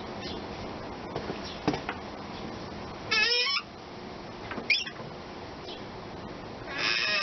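Abnormal squealing from a tractor's clutch release mechanism (release cylinder, release fork and its boot) as the clutch is disengaged: three high squeaks that waver in pitch, a short one about three seconds in, a brief one near five seconds, and a longer one near the end. A few light clicks come before them.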